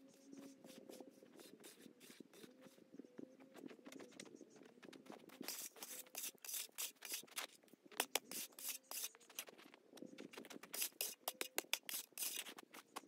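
Snow shovel scraping and scooping snow: a run of short crunching scrapes that grows quicker and busier about five seconds in, over a faint steady hum.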